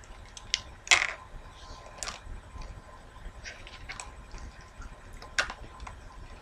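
Cheap metal costume rings being taken off their display packaging: scattered small clicks and clinks, the sharpest about a second in and another a little after five seconds.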